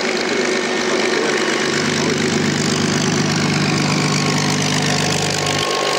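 Bell P-39 Airacobra's Allison V-1710 V12 engine running at low power on the ground, propeller turning, a steady even drone. A deep low note underneath comes in about two seconds in and drops out suddenly near the end.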